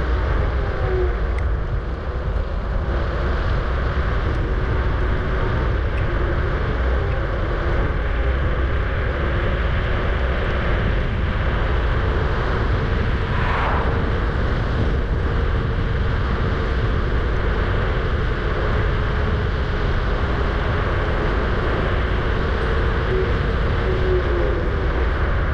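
Wind rushing over the microphone and road noise while riding a Kugoo G-Booster electric scooter at speed, with a faint steady whine running underneath.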